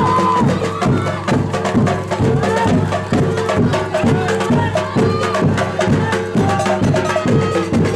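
Percussion-driven folk music for a street dance: a quick, steady beat of knocking, wood-block-like strikes under a short repeating pitched melody.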